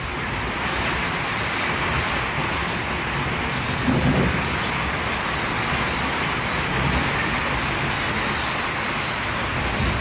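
Heavy rain pouring down in a steady hiss, with a brief low rumble about four seconds in.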